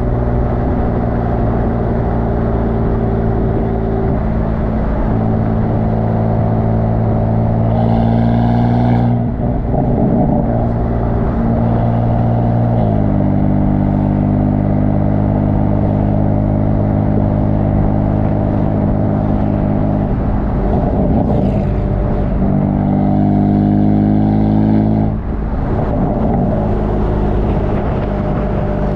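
BMW F82 M4's S55 twin-turbo inline-six exhaust, heard close up at the tailpipe, running steadily while the car is driven. The engine note changes pitch several times as the revs rise and drop.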